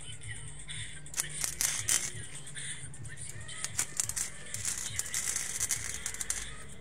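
Electric arc welding: the arc crackles and pops irregularly with a hiss, while music plays underneath.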